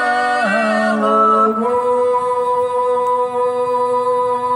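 A singing voice, unaccompanied, moving through a few notes of a song and then holding one long, steady note from about a second and a half in.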